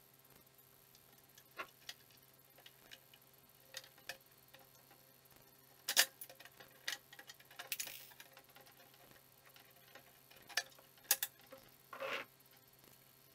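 Scattered sharp clicks and light knocks of a steel tube go-kart frame and its bolted brackets being handled and adjusted. The loudest click comes about six seconds in.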